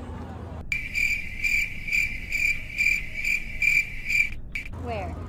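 Chirping-crickets sound effect edited into the video: a steady high cricket trill pulsing about three times a second, starting and stopping abruptly with the background sound cut away beneath it. It is the stock 'awkward silence' gag.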